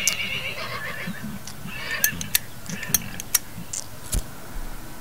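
A horse whinnies at the start, with a shorter call about two seconds in, followed by a run of sharp clicks and knocks over the next two seconds.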